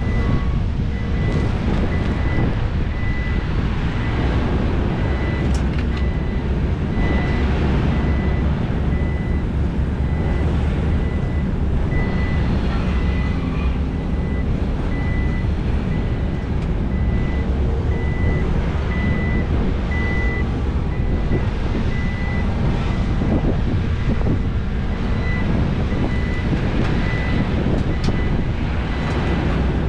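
Diesel engines of a large excavator and dump trucks running steadily under load, with a vehicle reversing alarm beeping at an even pace over them and the odd sharp metallic knock.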